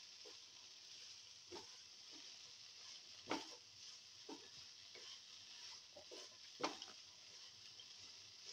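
Bitter gourd pieces frying in a little oil with a faint steady sizzle, while a spatula stirs them and clicks and scrapes against the pan several times, most sharply about three seconds in and again near seven seconds.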